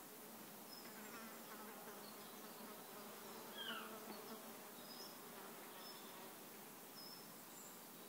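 Faint forest ambience dominated by a flying insect buzzing. Short high chirps come every second or two, and a brief falling call sounds about three and a half seconds in.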